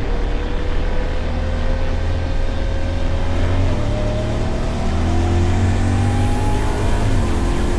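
Side-by-side off-road vehicle driving, its engine note rising slowly and steadily as it gathers speed, over a constant low rumble.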